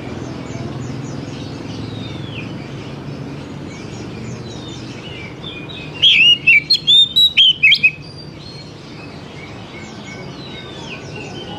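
Oriental magpie-robin singing a loud two-second phrase of about eight or nine quick gliding notes, about six seconds in. Faint high chirps of other small birds and a low steady background run throughout.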